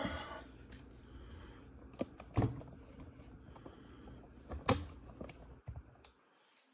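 Scattered light clicks and taps of model kit parts being handled and fitted together while the cockpit shell is assembled, with three sharper clicks near the middle.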